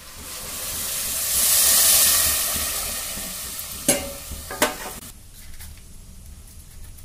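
Hot water poured from a steel bowl into a hot steel pot of ghee-fried rice, splashing and sizzling as it hits, swelling to its loudest about two seconds in and dying away by about five seconds. Two sharp metal knocks come around four seconds in as the steel bowl meets the pot.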